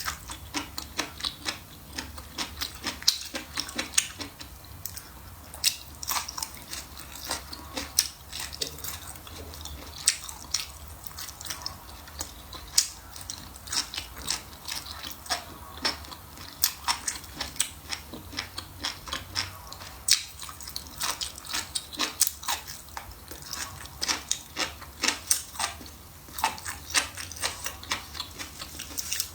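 Close-miked eating: a person chewing and biting, with irregular sharp mouth clicks and smacks, a few each second.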